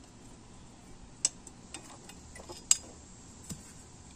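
Half a dozen sharp, separate metal clicks and clinks as a socket ratchet undoes the blade bolt on a mower deck and the loosened bolt and blade hardware come free; the loudest clink falls a little past halfway.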